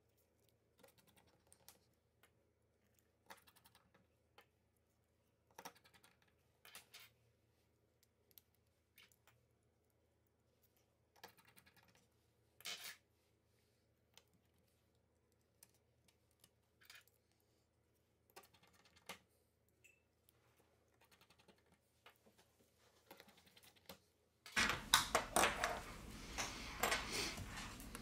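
Faint, scattered small clicks and taps of fingers and tools handling an opened smartphone's parts, then louder, denser rustling and clicking handling noise starting near the end.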